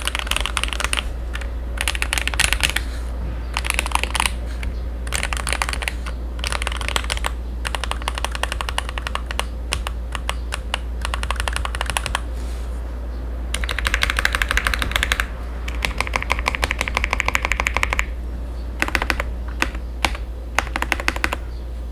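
Typing on a GMMK Pro mechanical keyboard with lubed Akko Jelly Black linear switches, its dampening foam removed and tempest tape on the case and PCB: bursts of keystroke clacks, with quick dense runs of keypresses a little past the middle, over a steady low hum.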